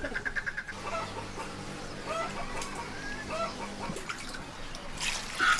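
Chickens clucking in short calls, with a louder burst of sound near the end.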